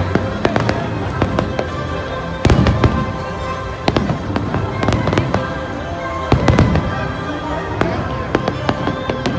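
Fireworks display: a rapid string of aerial shell bangs and crackles, with the heaviest bursts about two and a half seconds in and again around six and a half seconds.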